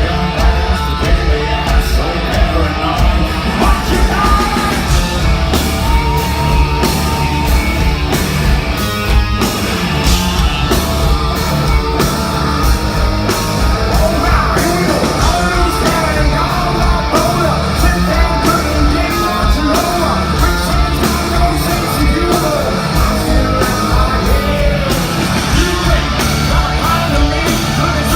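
Hard rock band playing live: a loud sung vocal over distorted electric guitars, bass and a steady drum beat.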